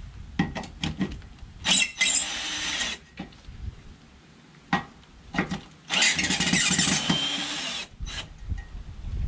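Ryobi cordless drill with an 8 mm socket bit backing out screws. It runs twice, first for about a second and then for about two seconds, with short clicks and knocks between the runs.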